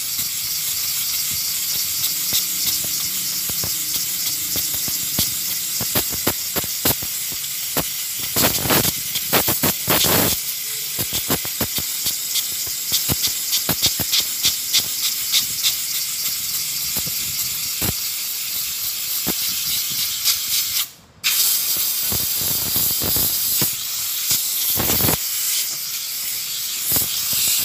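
Compressed-air blow gun hissing as it blows dust out of a Honda Activa scooter's pleated paper air filter, uneven with louder surges as the nozzle works over the pleats. It cuts off for a moment near the end, then starts again.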